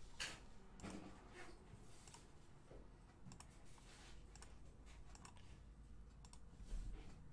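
Faint computer mouse clicks, scattered about one a second, over quiet room hum.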